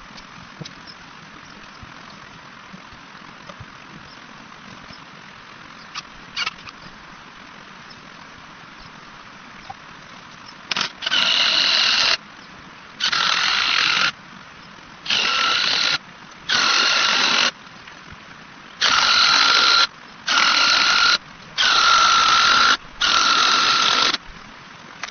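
A steady hiss with a few faint clicks, then, about halfway through, eight loud bursts of a high-pitched whine, each about a second long and starting and stopping abruptly: an Echo CS-2511TN top-handle chainsaw cutting logs.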